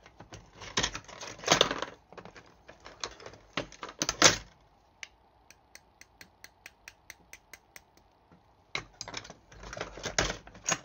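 Small metal parts of a Dunhill lighter clicking and rattling as they are handled and fitted together, with bursts of clatter at the start and near the end. In the middle comes a run of quick, even ticks, about four a second for nearly three seconds.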